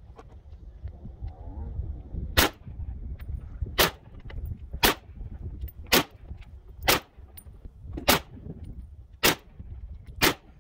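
Russian SKS semi-automatic rifle (7.62×39mm) fired eight times in steady succession, about one shot a second, starting about two seconds in.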